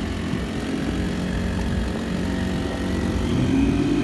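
Honda GX35 35cc four-stroke engine on a kayak outboard drive running steadily at cruising speed, getting a little louder about three and a half seconds in.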